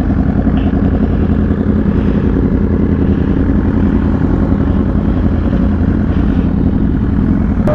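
A vehicle engine running steadily, with a heavy low rumble under it.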